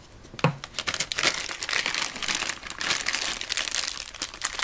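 Clear plastic wrapper crinkling continuously as it is pulled off a Play-Doh tub by hand, after a single knock about half a second in.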